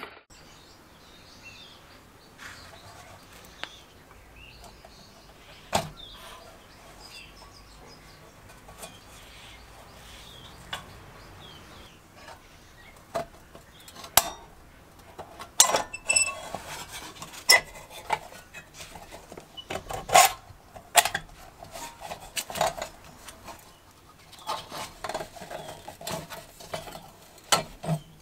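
Scattered metallic clicks and clinks, with some glass, as the tin frame, wire guard and glass globe of an old Dietz kerosene lantern are handled and taken apart. Sparse at first, coming more often in the second half.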